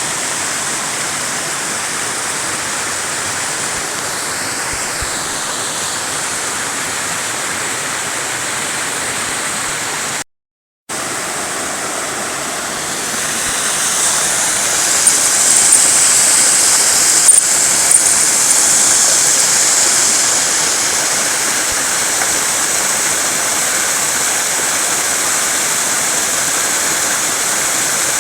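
Waterfall on a mountain stream, a steady rushing of falling water. It drops out for a moment about a third of the way in, then comes back and grows louder and hissier for several seconds before easing a little.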